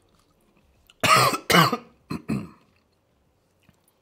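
A man coughing four times in quick succession about a second in, the first two coughs the loudest, while eating a very chili-hot hot pot.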